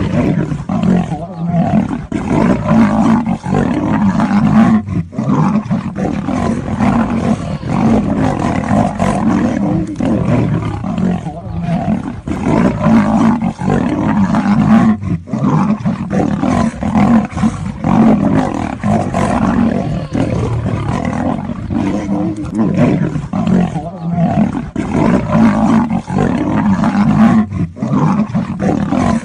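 Big cats fighting, roaring almost without pause, with a few short breaks.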